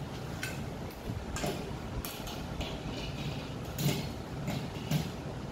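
A handful of light metal clicks and clunks as a compact one-burner camping stove is set down and fitted into a metal ring made from an aluminium pot lid, the two loudest near the end, over a steady low hum.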